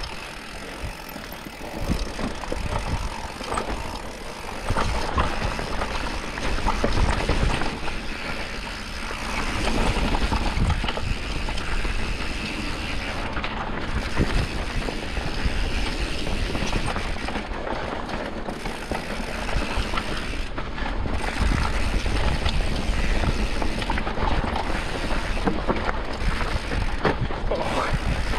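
Mountain bike descending a dirt singletrack: tyres rolling over dirt, and the bike's parts rattling with many short sharp clicks over bumps. Wind buffets the microphone with a steady deep rumble.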